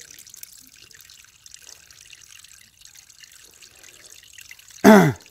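Running stream water trickling faintly and steadily. Near the end a short, loud vocal sound slides down in pitch.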